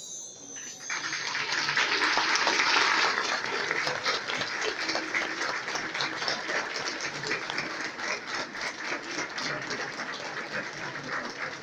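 Audience applauding. The clapping starts about a second in, is loudest shortly after, then eases off gradually.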